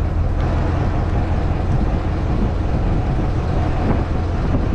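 Engine of a motorized outrigger boat running steadily under way: an even, loud low rumble.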